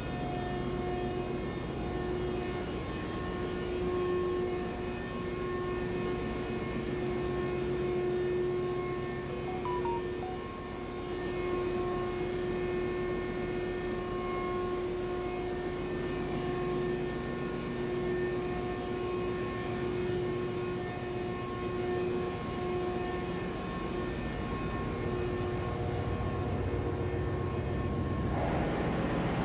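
Container ship engine-room machinery running: a steady drone with several fixed whining tones over it, the noise growing louder near the end.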